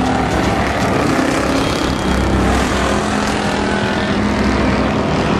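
Engines of several old full-size stock cars racing together, running at high revs in a steady, blended roar of engines.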